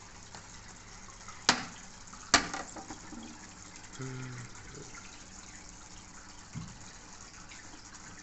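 Aquarium water running and trickling steadily, with two sharp clicks about a second apart near the start and a faint knock later on.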